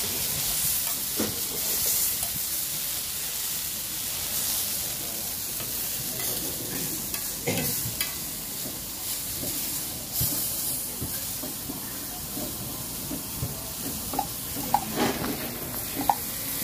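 Tomato slices sizzling in oil on a hot flat metal griddle, a steady hiss, with a metal spoon scraping and tapping the pan now and then as they are turned; a run of quick taps comes near the end.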